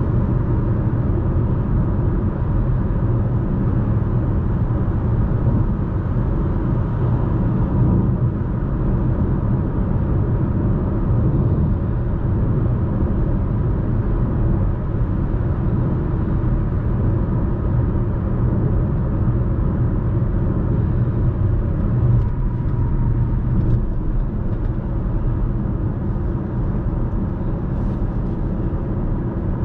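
Cabin noise of a Chevrolet Malibu 1.35-litre turbo cruising at highway speed: a steady rumble of tyres, engine and wind heard from inside the car. The low hum drops a little about 24 seconds in as the car slows.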